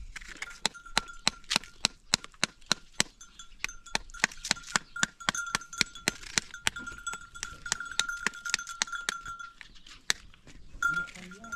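Bells on grazing livestock clinking irregularly, about three sharp strikes a second, over a steady high ringing tone that stops shortly before the end.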